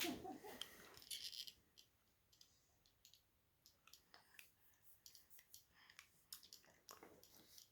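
Near silence in a quiet room, with faint scattered clicks and taps and a brief louder sound in the first second.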